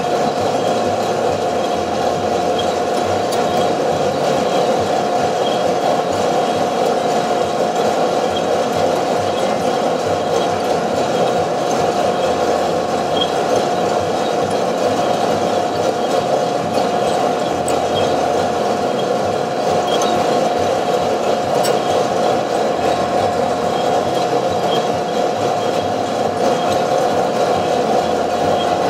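Two-barrel Probat sample coffee roaster running while roasting a coffee sample: the drum motor and air blower make a steady whirring hum with a constant whine.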